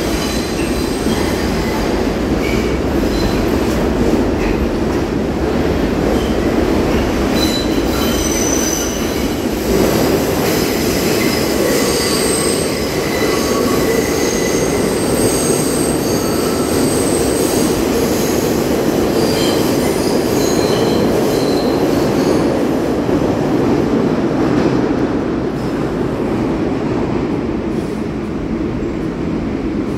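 New York City Subway train running along the track, a loud steady rumble with short high-pitched wheel squeals coming and going, the squeals dying away in the last few seconds.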